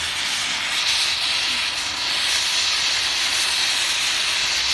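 Handheld plumber's gas torch burning with a steady hiss, its flame heating a copper pipe and fitting to sweat a soldered joint.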